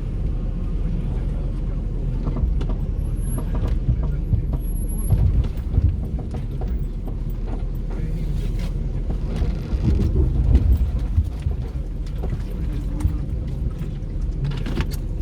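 Four-wheel drive's engine running steadily, heard from inside the vehicle, with scattered knocks and rattles as it works over a rough track; the bumps come heaviest about five seconds in and again around ten seconds.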